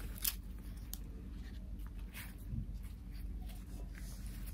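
Rustling and crinkling of a burrito wrapper as it is handled and folded back around the burrito, with a few short crackles, the loudest just after the start.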